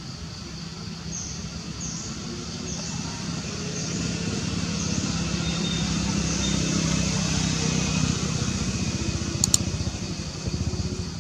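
A motor vehicle's engine running, growing louder toward the middle and fading near the end, with short high chirps from birds or insects above it and a sharp click about three-quarters of the way through.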